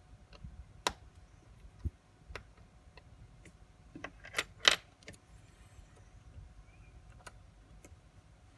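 Small metal clicks and taps of watchmaker's tools and watch parts being handled during disassembly: scattered sharp ticks, with a quick run of louder clicks about four to five seconds in.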